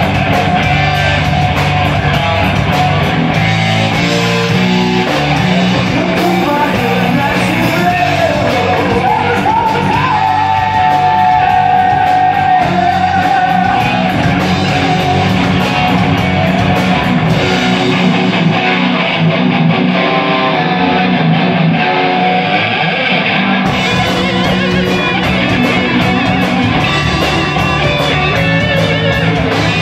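A rock band playing live on electric guitars, bass guitar and drums, with a melody line bending in pitch over the top early on. The drums and cymbals drop out for about five seconds past the middle, leaving the guitars, then come back in.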